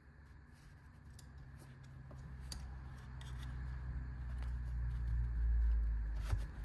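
Handling noise: a low rumble that builds over several seconds and is loudest near the end, with scattered light clicks, as the gear and the recording setup are moved about.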